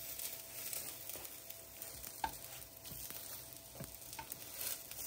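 Butter sizzling steadily in a frying pan as egg-soaked croissants fry, with a few light clicks as tongs turn them over.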